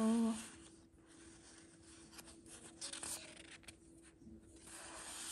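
Paper sticker sheets being handled and shuffled, rustling and sliding against each other with a few light taps, under a faint steady hum.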